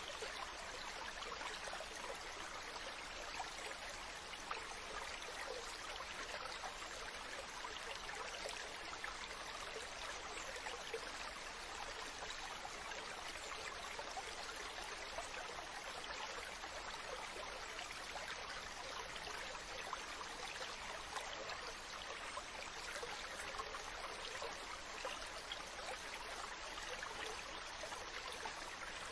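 Ocean water washing steadily, an even hiss of surf with small splashes and no clear rise and fall of separate waves.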